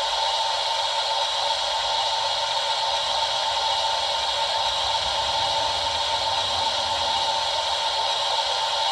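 Steady steam hiss played by the DCC sound decoder of an O gauge 64xx pannier tank model.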